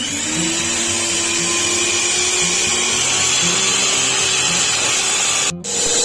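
Electric mixer whisking egg whites into foam: the motor spins up at the start and runs with a steady whine. It cuts out for a moment near the end and comes back at a higher pitch.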